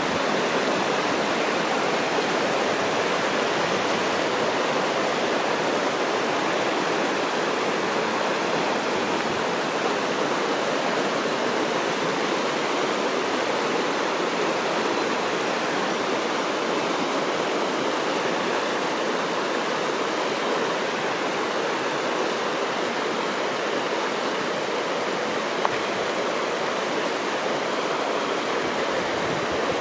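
River water rushing in a steady, even roar of noise.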